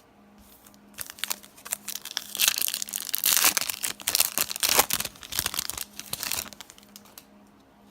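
A trading-card pack's foil wrapper being torn open and crinkled, a dense crackling that starts about a second in, is loudest in the middle and dies down near the end.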